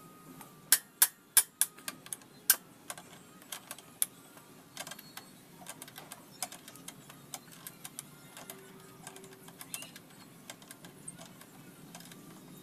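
Irregular sharp metallic clicks and clinks of a hand wrench working the 17 mm swing arm pivot nut on a Honda XRM 125, loudest in the first couple of seconds.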